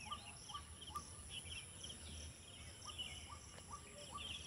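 Faint outdoor ambience of birds and insects: one bird repeats a short rising note about twice a second, other birds chatter in between, and insects keep up a steady high drone.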